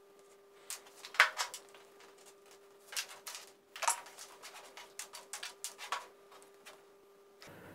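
Scattered light clicks and knocks of handling: stepper motors and their cables being moved about on a wooden tabletop, over a faint steady hum.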